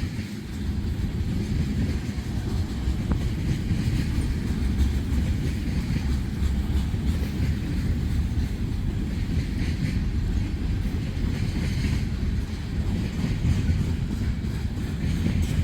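Freight train cars rolling steadily past, a continuous low rumble of steel wheels on the rails.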